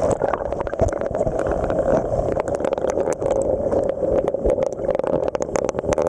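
River current heard underwater through a submerged camera: a muffled, steady rush with many small crackling clicks.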